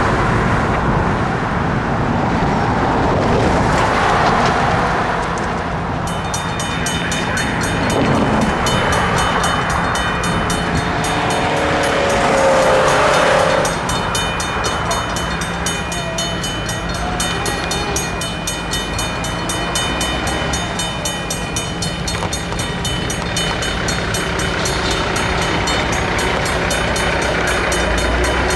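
Safetran mechanical railroad-crossing bells start ringing about six seconds in, a rapid, even clanging that keeps on as the crossing signals flash and the gates come down. Passing road traffic is heard throughout.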